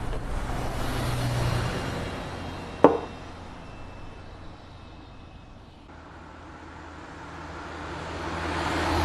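Road traffic: a vehicle's engine and tyre noise fading away, then another approaching, with a steady low hum under both. A single sharp click about three seconds in.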